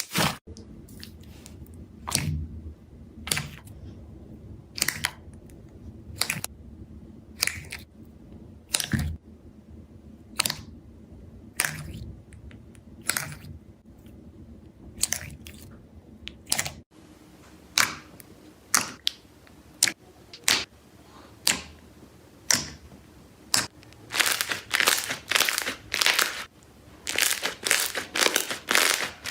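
Slime being squeezed and worked, giving a series of short, crisp crackles and crunches. They come about once a second at first, then faster and closer together in the second half.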